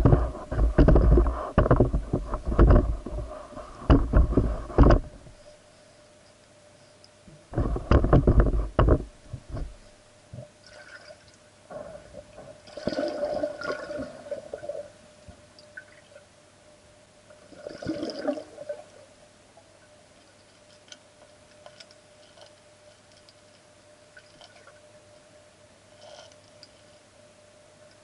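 Underwater pool sounds picked up by a submerged camera: loud gurgling, rushing water for about the first five seconds and again around eight seconds in, then softer bubbling bursts, over a faint steady hum.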